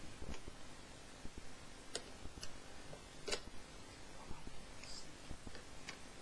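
Faint, scattered small clicks and ticks of a screwdriver driving heatsink screws in gently, one screw at a time.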